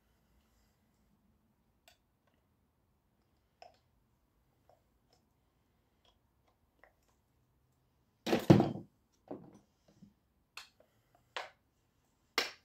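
Hand tools working on a dismantled electric motor: scattered light metal clicks, then a loud metallic knock and clatter about eight seconds in and a few smaller knocks after it. Rapid hammer taps start just at the end.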